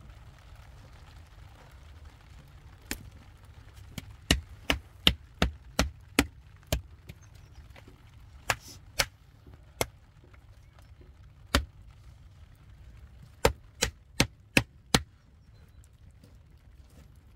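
A series of about seventeen sharp knocks, coming in quick runs about three a second: one a few seconds in, a fast run, a few spaced strikes, then another fast run near the end.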